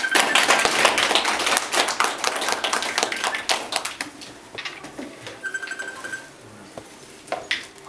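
A small group clapping, dying away after about four seconds.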